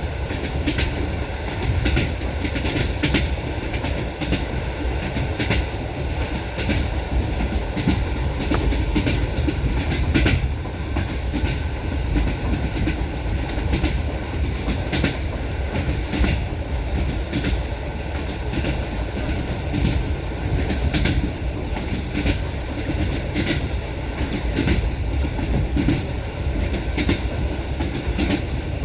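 Railway carriage wheels clattering over rail joints: a steady running rumble broken by repeated sharp knocks, often in quick pairs and groups.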